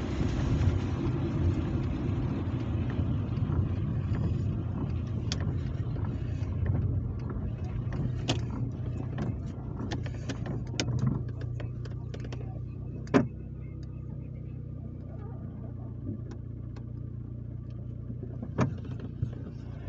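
Car engine and wet-road tyre rumble inside the cabin, growing gradually quieter as the car slows. A few sharp clicks and knocks sound over it, the loudest about two-thirds of the way through.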